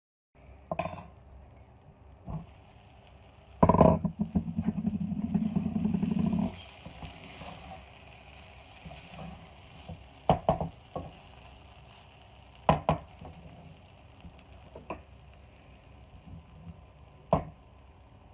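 Wooden spatula stirring cooked rice in a metal pot, with a few seconds of loud scraping and rattling early on and single sharp knocks against the pot now and then, over a faint steady sizzle.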